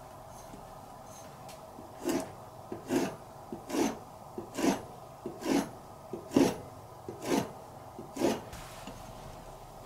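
Kitchen knife drawn through raw bigfin reef squid flesh onto a cutting board, slicing sashimi: eight short scraping strokes, about one every 0.8 s, starting about two seconds in.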